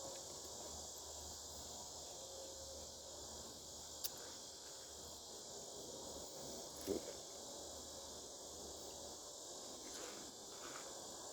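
Faint, steady high-pitched insect chirring, with a single sharp click about four seconds in and a brief low knock near seven seconds.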